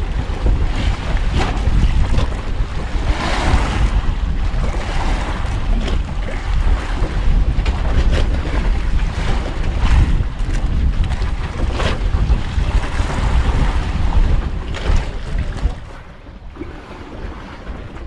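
Wind buffeting the microphone over the sound of waves washing at sea. It is loud and gusty, then eases near the end.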